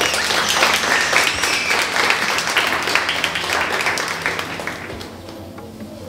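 Audience applauding, a dense clatter of many hands clapping that thins out and dies away near the end.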